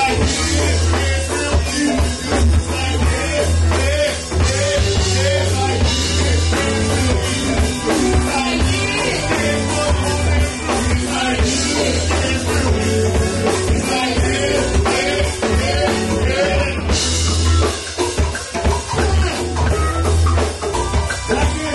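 Live band playing: drum kit and electric guitar over a heavy low bass, with vocalists singing into microphones.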